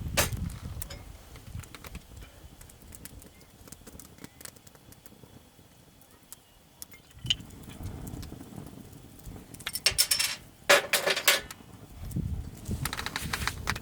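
Small objects being handled: scattered light clinks and knocks with rustling, and a few louder rustling bursts about ten seconds in and again near the end.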